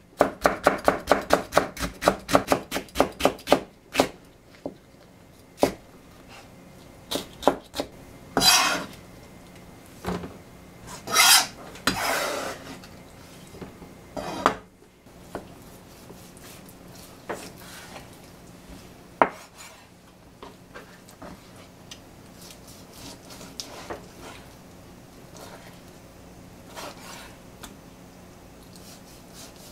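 Kitchen knife slicing green peppers on a plastic cutting board: a quick, even run of crisp chops, several a second, for the first few seconds. Then a few louder scrapes and knocks as the cut strips are swept off the board, and only faint knife ticks later on as raw chicken is cut.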